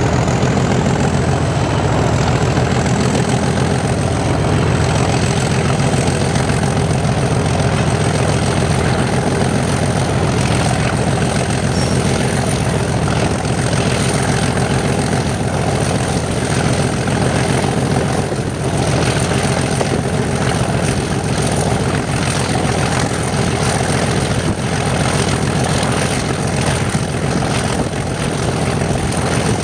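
Diesel locomotive engine running steadily under power as the train moves, a loud, deep drone with a steady high whine over it.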